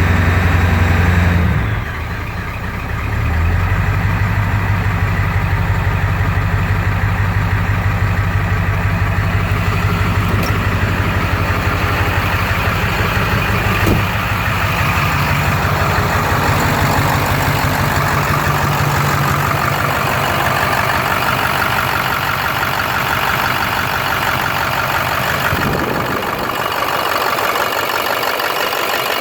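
Fuel-injected Gen 3 230cc single-cylinder small engine running at a rough idle while its tune is adjusted. The engine speed dips about two seconds in, picks back up into a steady firing rhythm, and shifts again near the end.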